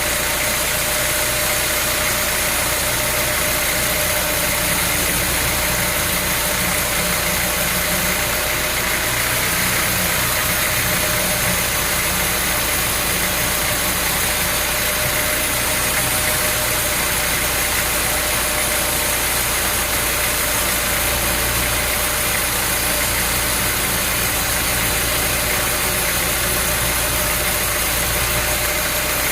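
An engine or machine running steadily at an even, unchanging speed.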